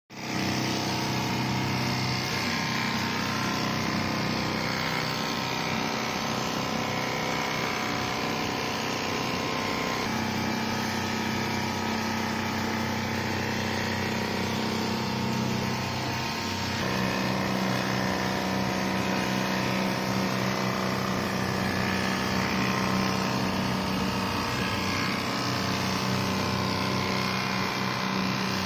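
Richpeace computer-controlled quilting machine running steadily as its gantry-mounted sewing head stitches wavy lines through quilted mattress fabric, a constant mechanical hum. The hum changes at about ten and again at about seventeen seconds.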